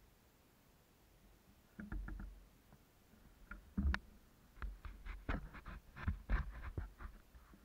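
Near quiet for about two seconds, then a run of irregular close knocks and clicks with soft thuds, uneven in spacing and loudness.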